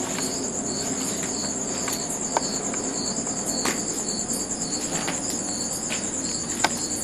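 Crickets chirping steadily in the night, a continuous high pulsing trill, with a few faint clicks.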